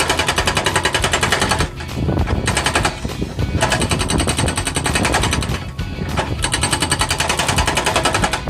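Excavator-mounted hydraulic breaker hammering concrete rubble in fast repeated blows, about ten a second, stopping for a moment a few times.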